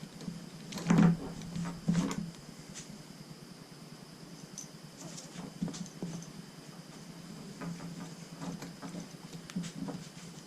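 Climbing-saddle hardware being handled: the swivel and rigging plates knock and click, with the loudest knocks about one and two seconds in and lighter clicks and rustles after.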